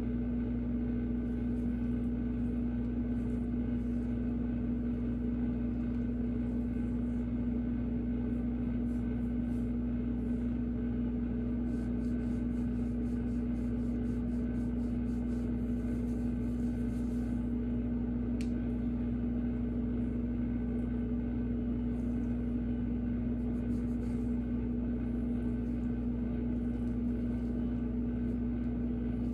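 Steady machine hum with a constant low tone that never changes, with faint scattered rustles on top.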